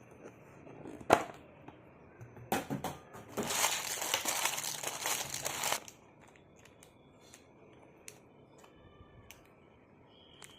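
Chocolate wrapper crinkling as it is handled and torn open: a sharp snap about a second in, then a few short rustles and a long dense crinkle from about three to six seconds, fading to a few light ticks.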